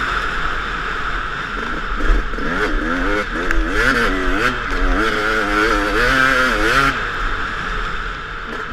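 2014 Yamaha YZ250 two-stroke motocross engine heard from the bike, its pitch rising and falling over and over as the throttle is opened and shut through the ruts and turns, easing off near the end.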